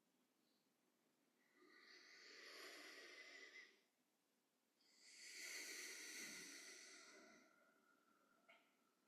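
Two slow, faint breaths close to the microphone, each swelling and fading over about two seconds, with a pause between them.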